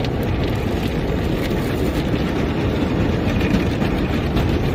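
An automatic car wash spraying water over a car, heard from inside the cabin as a steady rushing rumble with a fine patter of spray on the windshield.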